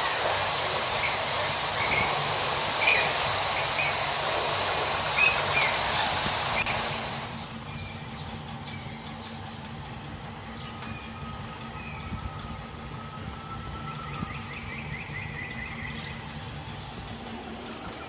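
Outdoor ambience: a steady rushing noise with short, high chirping bird calls, dropping to a quieter background about seven seconds in, where a faint high note and a trill sound near the end.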